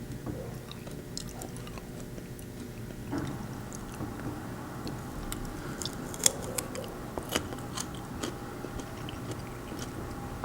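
A person chewing food close to a clip-on lavalier mic: wet mouth clicks and smacks scattered throughout, over a faint steady hum.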